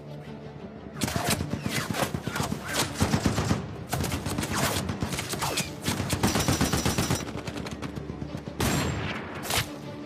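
Battle gunfire: a rapid volley of overlapping rifle shots starts about a second in and thins out after about seven seconds. Two single loud shots follow near the end.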